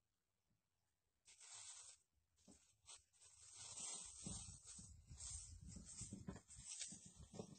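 Plastic bag rustling and crinkling as hands rummage in it: a brief rustle after a near-silent start, then continuous irregular crinkling with soft bumps from about three seconds in.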